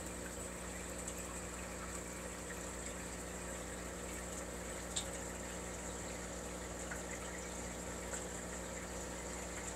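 Aquarium pump running steadily: a low hum of several steady tones under a faint watery hiss, with one light click about five seconds in.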